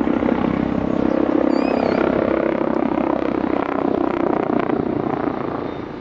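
TAI/AgustaWestland T129 ATAK twin-turboshaft attack helicopter flying a display manoeuvre: the rapid, regular beat of its main rotor blades over the turbine noise, easing off near the end as it moves away.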